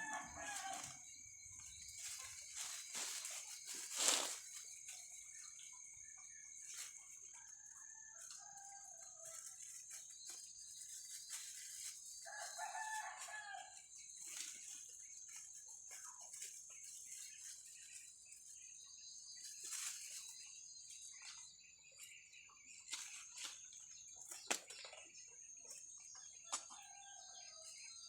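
Faint rooster crowing, three times spread over the stretch, over a steady high-pitched background whine, with a few sharp knocks.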